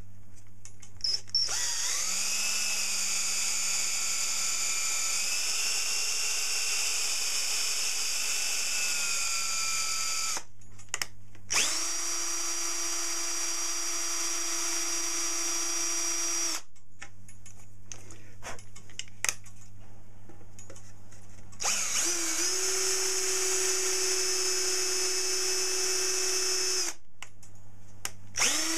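Electric drill spinning up and running at a steady speed in repeated bursts: one of about nine seconds, two of about five seconds, and a fourth starting near the end. A low hum sounds in the pauses between bursts.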